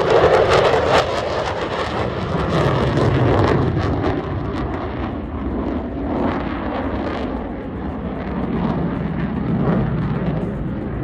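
F-35B's Pratt & Whitney F135 jet engine running loud during a demonstration pass, with a harsh crackle in the first second or so. It then settles into a rumble that swells and fades a little.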